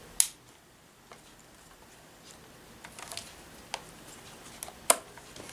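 Scattered sharp clicks and light taps of small hard objects being handled, with one louder click just after the start and another near the end.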